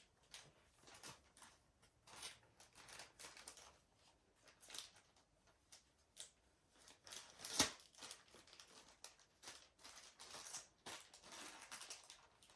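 Faint, intermittent rustling of a plastic bag as a remote control is slipped into it, with one sharper click about halfway through.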